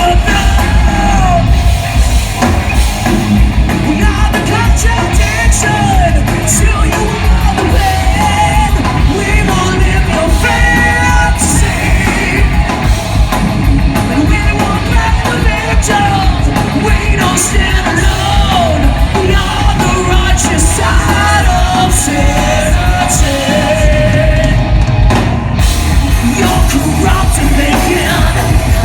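Live heavy metal band playing at full volume, with a singer mixing melodic sung lines and yelled vocals over fast, dense drums and distorted guitars, echoing in a large hall.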